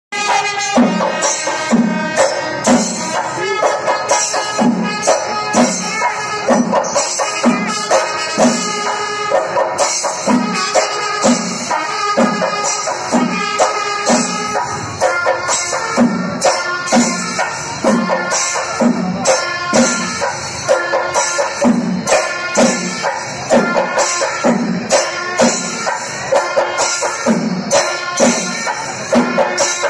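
Live festival procession music: drums keep a steady beat of about two a second, under bright jingling cymbals and a sustained melody line.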